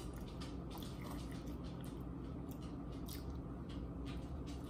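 Faint chewing and small mouth clicks as a person eats takeout food, over a steady low hum.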